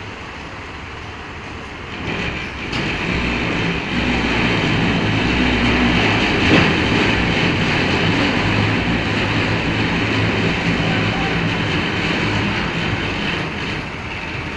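Tractor engine running under load as it tows a house on a trailer; it grows louder about two seconds in and eases slightly near the end.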